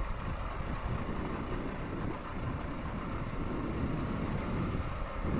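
Steady low rumble with wind buffeting the microphone.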